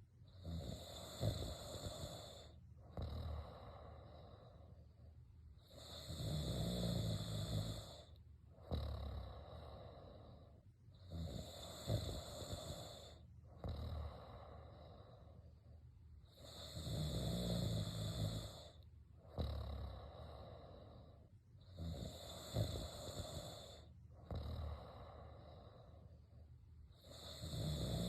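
A sleeper snoring in a slow, regular rhythm: a louder, low snore about every five seconds, five in all, each lasting one and a half to two seconds, with quieter breathing between.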